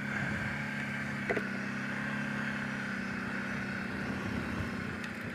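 Kawasaki Brute Force 750 ATV's V-twin engine running at a steady, even speed, with one short click about a second in.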